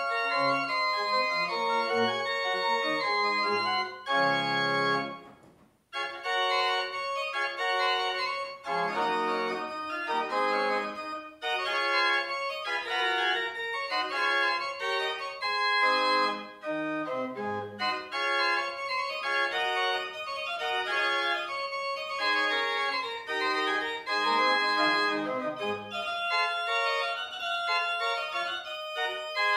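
Small baroque pipe organ, one manual and pedal, playing. A held final chord dies away about five seconds in, and after a brief silence the playing starts again with several moving lines over pedal notes.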